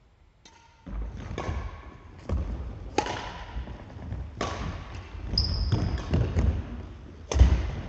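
Badminton rally: racket strikes on the shuttlecock and players' footsteps thudding on a wooden gym floor, echoing in a large hall. A brief high squeak comes about five and a half seconds in, and the loudest strike is near the end.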